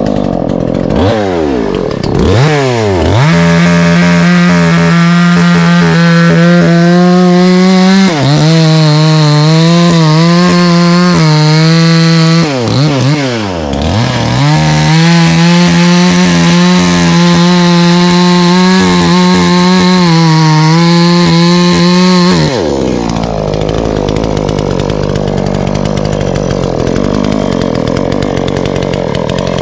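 Petrol chainsaw revved up to full throttle and held there while cutting through the base of a tree trunk, its pitch sagging slightly as the chain bites. The engine drops off and revs up again about 13 seconds in, and falls back to a low idle about three-quarters of the way through.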